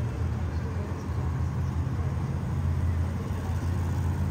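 Monster truck engine running with a steady low rumble.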